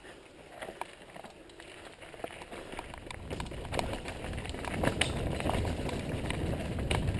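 Mountain bike rolling down a rough trail: tyre rumble and rattling, with sharp knocks over bumps, growing louder from a few seconds in as it picks up speed.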